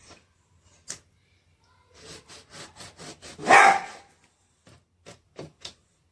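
A dog barks loudly once about three and a half seconds in, with smaller yips before it. A cleaver taps a few times on a wooden chopping board.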